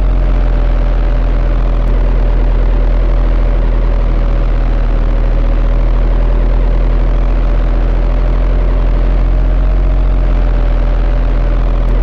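Steady machine hum: a deep low drone with a faint whine on top that wavers slightly in pitch, holding level with no breaks.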